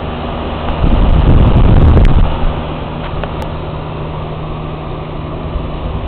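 1999 Carrier air-conditioner outdoor condensing unit running, its condenser fan and compressor making a steady hum. About a second in, a louder low rumble of air buffeting the microphone lasts just over a second.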